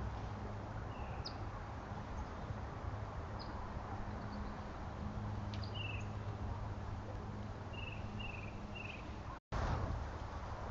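Lakeside outdoor ambience: a steady wash of background noise with a low hum, and a few short, faint bird chirps every couple of seconds. The sound drops out for an instant near the end.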